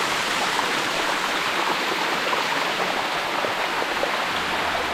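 Shallow water of a limestone cascade running steadily over the rocks, heard close up as an even rushing wash.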